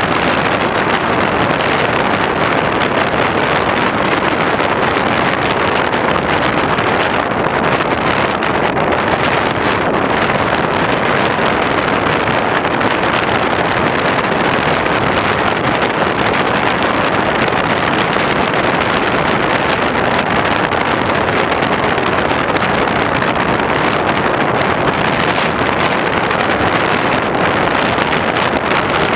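Steady rush of wind and motor noise on the onboard camera of an X8 FPV model aircraft in flight, with no change through the stretch.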